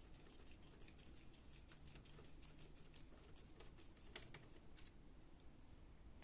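Faint, irregular small clicks and ticks of a screwdriver and loosened parts being worked inside a laser printer's frame during disassembly.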